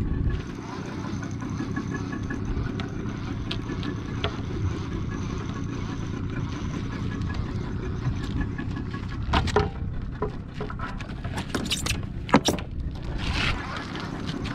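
A boat engine running steadily at slow trolling speed. About nine seconds in, a handful of sharp knocks and clicks come over the top of it.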